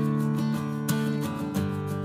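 Background music: strummed acoustic guitar, chords changing about every half second.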